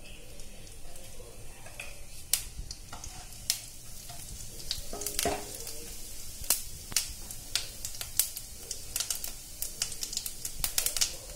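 Cumin seeds frying in hot ghee and oil in a stainless steel kadai, a steady sizzle with sharp pops as the seeds crackle. The pops are sparse at first and come thick and fast near the end as the tempering gets going.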